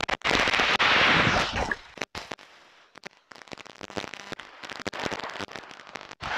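An overhead beach cast: about a second and a half of loud rushing hiss as the rod swings and 30 lb braid runs off a Shimano Ultegra 14000 reel behind a 170 g lead and squid bait. Then a lull and a quieter stretch of scattered crunching clicks.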